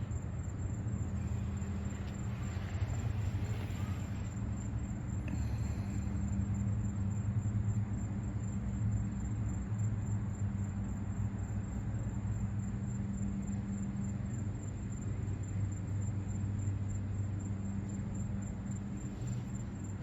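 Steady low rumble with a constant low hum, like road traffic or an engine running, and a faint steady high whine above it.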